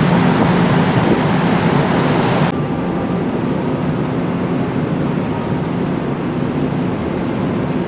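Steady low drone of a large car ferry's engines and machinery under open-deck wind noise as the ship casts off. The hiss drops abruptly about two and a half seconds in, leaving the drone with a faint thin whine.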